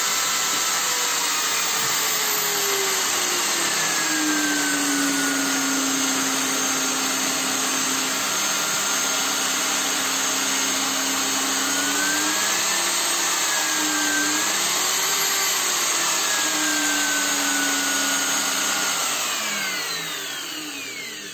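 Interskol 750 W corded hammer drill running free with no load, set by a dimmer-module speed controller. Its motor whine drops in pitch a few seconds in, rises and falls again around the middle, then winds down and fades out near the end.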